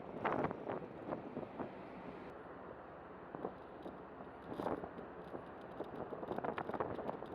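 Wind buffeting the microphone on a ferry's open deck, in short irregular gusts over a steady background of ship and harbour noise.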